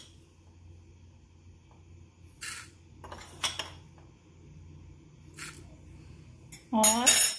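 Metal teaspoon scooping instant coffee granules from a jar and tipping them into a plastic beaker, with a few light clinks and scrapes of the spoon on the jar. Near the end a brief, loud pitched sound with a wavering tone, the loudest thing heard.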